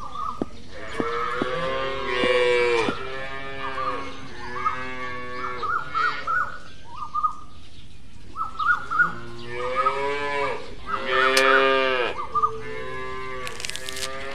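Cattle mooing repeatedly in long, drawn-out calls, with short high chirps between the calls and a few sharp clicks near the end.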